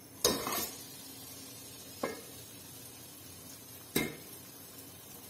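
Steel ladle knocking against dishes three times, about two seconds apart, while scooping halwa out of a pot onto a ceramic plate; the first knock is the loudest.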